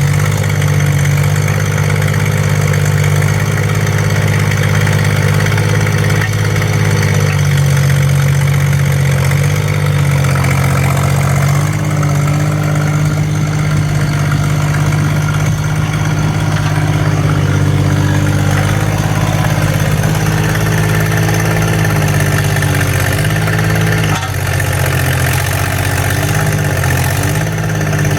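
Yanmar B15 mini excavator's diesel engine running steadily, its note dipping and wavering briefly several times near the end.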